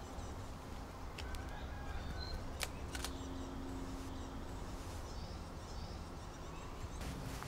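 DSLR camera shutter clicking several times, the loudest about two and a half seconds in, over a quiet steady background.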